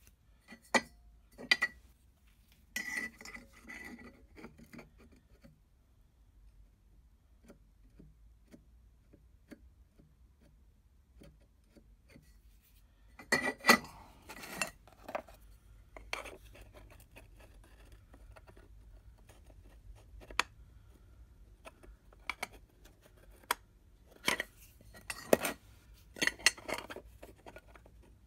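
Cut steel pieces and a steel engineer's square being handled, clinking and knocking against metal, in a few separate flurries with short pauses between.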